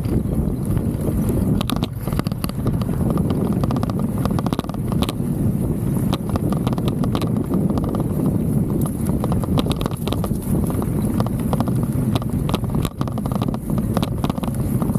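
Mountain bike riding over a dirt track, heard from a handlebar-mounted action camera: steady low wind and tyre noise, with a dense run of clicks and knocks from the camera rattling in its loose mount.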